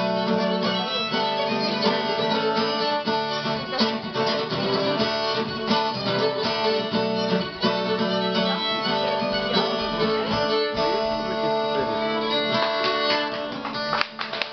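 Irish reel played live on fiddle and acoustic guitar, a fast, steady dance rhythm with the guitar strumming chords under the fiddle melody; the playing drops away near the end.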